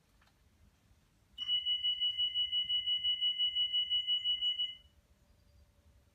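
Class 319 electric multiple unit's door warning alarm sounding for about three seconds: a high two-tone electronic beep pulsing about six times a second, the signal that the doors are closing before the train departs.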